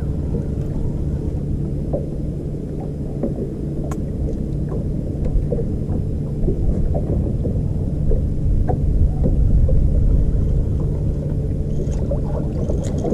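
A boat motor running with a steady low hum, with faint scattered clicks and taps from a fishing reel being slowly cranked against a hooked catfish.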